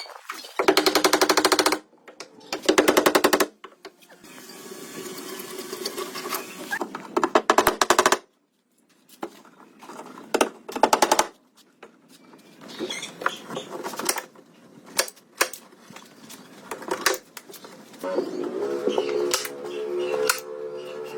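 A power tool rattling in three short bursts of rapid hammering clicks, with lighter knocks and clatter in between.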